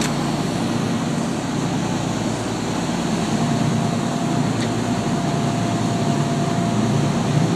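Fishing boat's engine running steadily under way: a low, even drone over the hiss of wind and wake water.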